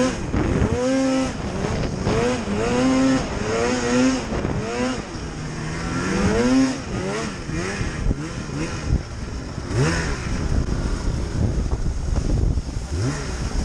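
Polaris Axys Pro RMK 800's two-stroke twin engine revving under heavy load as the snowmobile climbs a steep snow slope. The throttle is worked on and off, so the pitch rises and falls over and over in the first half, then runs rougher and lower with a few short quick revs.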